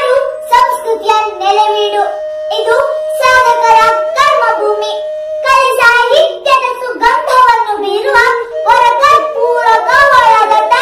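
A young girl's voice declaiming in Kannada. A steady held tone runs beneath her voice for about the first five seconds, then stops.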